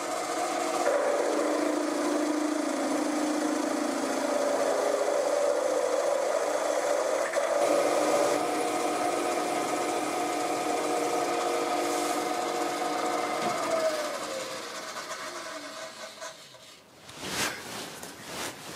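Milling machine spindle running as a twist drill cuts a blind hole into 4140 steel, a steady machine hum with cutting noise. About fourteen seconds in the spindle is switched off and its whine falls away as it winds down, followed by a few knocks.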